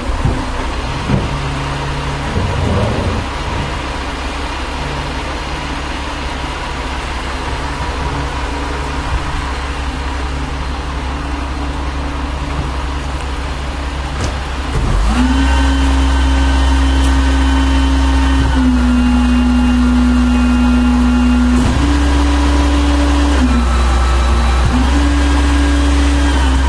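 1996 Volvo WX64 garbage truck's diesel engine running at a low steady speed, then revving up sharply about halfway through and held loud at a steady higher speed, its pitch dropping briefly and coming back up a couple of times.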